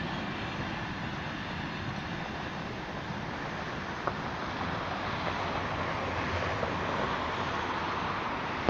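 Steady rolling rumble of a freight train of tank-container wagons moving away along the track, with wind on the microphone.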